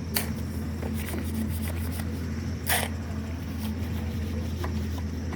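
A steady low engine hum, with two sharp knocks: one right at the start and one about halfway through.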